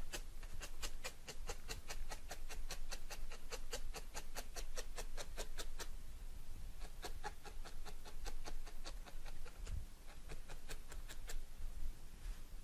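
A barbed felting needle stabbing repeatedly through wool roving into a foam mat: a quick, even run of soft clicks at about five a second, which becomes slower and uneven after about six seconds and stops near the end.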